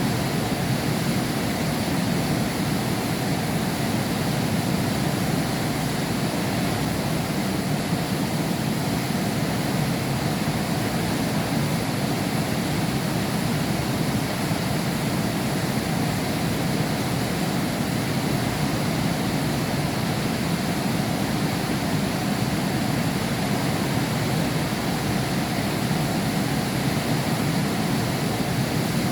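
Heavy rain falling steadily, an unbroken even hiss with a deep rumbling body, with no thunder claps.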